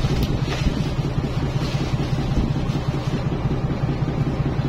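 Engine aboard a fishing boat running steadily, a low even drone.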